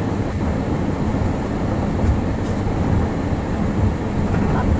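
Steady low rumble of a moving vehicle heard from inside it, road and running noise without any distinct events. A voice starts near the end.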